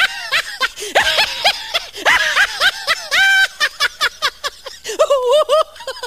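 The 'lion laugh' comedy sound effect: a cartoonish laugh in quick, choppy syllables that rise and fall in pitch, with one longer held note midway.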